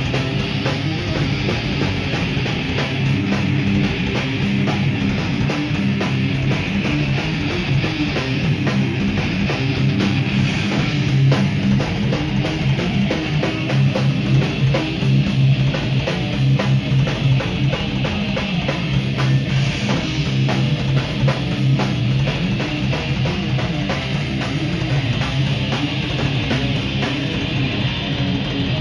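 Heavy metal band playing live with no vocals: distorted electric guitars, bass guitar and a drum kit, continuous and loud.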